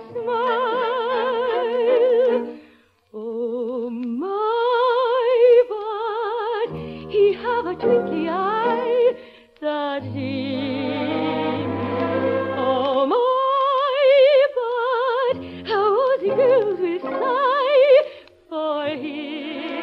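Operatic soprano singing a slow song with strong vibrato over orchestral accompaniment, in long phrases with brief pauses between them, from an early-1950s radio broadcast recording.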